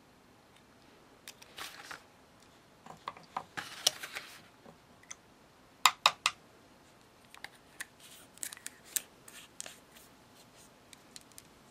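Light clicks, taps and short scrapes of small craft tools and paint bottles being handled on a tabletop. There is a brief rustle near four seconds in and three sharp clicks in quick succession about six seconds in.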